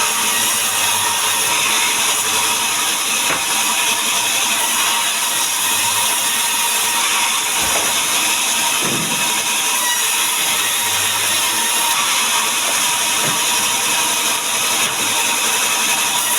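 Power saw running steadily while cutting mahogany wood into boards, a loud even whirring noise.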